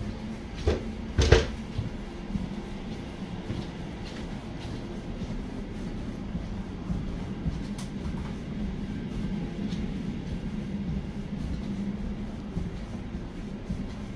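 Elizabeth line Class 345 electric train running: a steady rumble with a low hum. Two sharp knocks come close together about a second in, the second louder.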